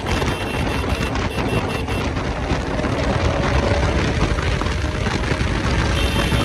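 Bajaj Pulsar RS200's single-cylinder engine running while the motorcycle rides along the highway, under heavy wind rush on the microphone.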